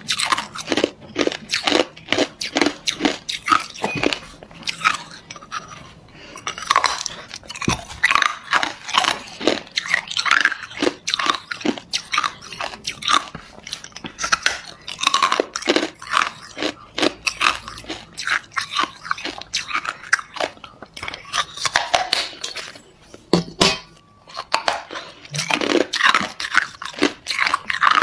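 A person biting and chewing hard ice: a fast, irregular run of sharp crunches and cracks, with a brief pause late on.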